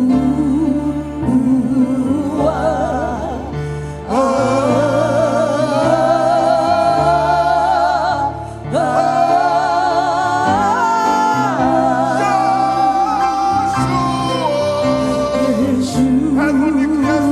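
Gospel singing over instrumental accompaniment with a steady bass line. A voice with wide vibrato holds long notes, climbing higher about four seconds in and coming back down near the end.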